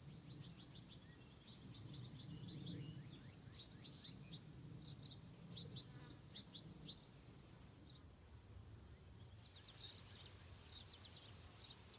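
Faint outdoor ambience: a steady high buzzing of insects, with many short, quick bird chirps throughout and a low rumble that fades out about two-thirds of the way in.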